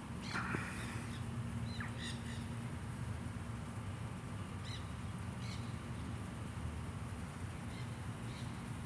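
Birds calling: scattered short, high chirps and a harsher call near the start, over a steady low background hum.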